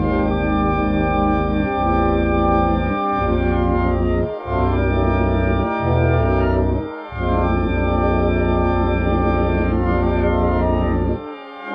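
Loud, sustained organ-like keyboard chords, each held for one to two seconds before a brief break and a change of chord; the last chord stops shortly before the end.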